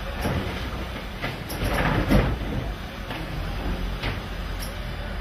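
Garbage truck running steadily, with a cluster of clattering knocks about one to two seconds in, the loudest just after two seconds.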